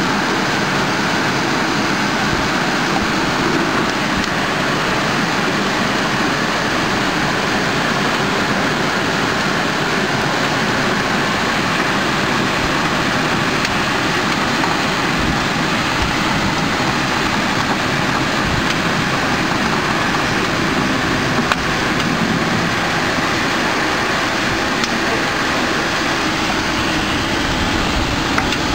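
A 10,000-bottle-per-hour rotary rinsing, filling and capping machine for bottled water running: a loud, steady mechanical noise with a few faint clicks.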